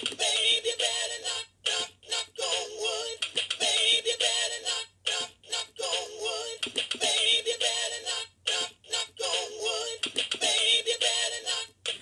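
Electronic bird chirping and song from a battery-powered animatronic toy birdhouse with a goldfinch and a woodpecker, played through the toy's small speaker. It comes in repeated phrases of about a second each, broken by short gaps.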